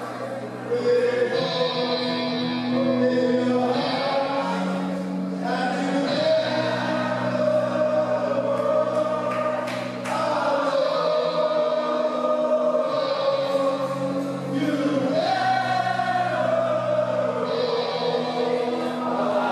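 Wrestling entrance music over the hall's sound system: a choir-like piece of long held sung chords over a sustained low bass, changing chord every couple of seconds.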